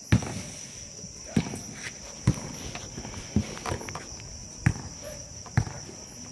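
Sharp thuds at uneven intervals, about one a second, over a steady high-pitched drone of night insects such as crickets.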